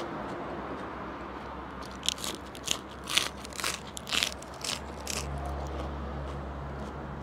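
Crisp lettuce leaf bitten and chewed close to the microphone: a run of about half a dozen loud, sharp crunches about two seconds in, then quieter chewing.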